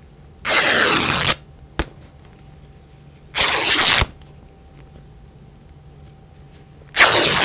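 Printed quilting-fabric panel being torn by hand into strips along pre-cut snips: three rips, each under a second long, a few seconds apart, with a small click between the first two.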